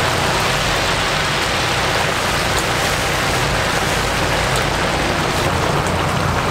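Hot oil in a commercial deep fryer sizzling and bubbling steadily around whole chickens, with a low steady hum underneath.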